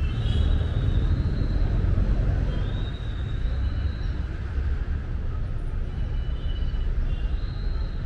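City street ambience: a steady low rumble, with thin high chirps coming and going every second or two.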